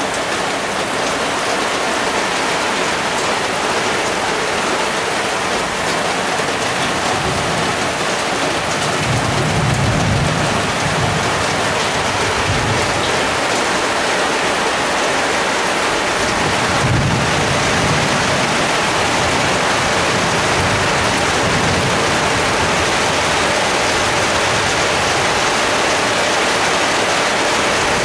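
Heavy rain pouring steadily during a thunderstorm. Thunder rumbles low twice, about a third of the way in and again a little past halfway.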